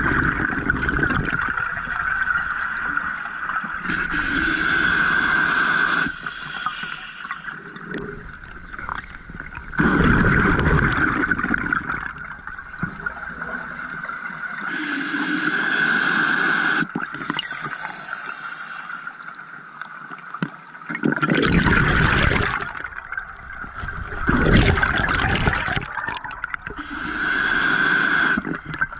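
A scuba diver's regulator breathing underwater: slow breaths, each a hiss of inhaling followed by a rush of exhaled bubbles, repeating about three times.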